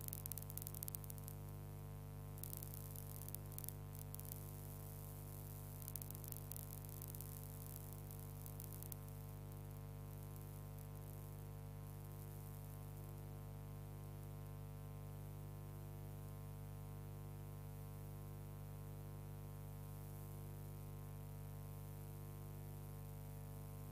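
Steady electrical hum with a stack of overtones, and crackling static over the first nine seconds or so.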